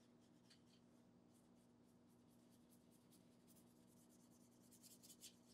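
Near silence, with faint scratchy strokes of a wet round synthetic paintbrush brushing across mixed-media paper and wax pastel; the strokes come closer together and a little louder near the end, over a faint steady low hum.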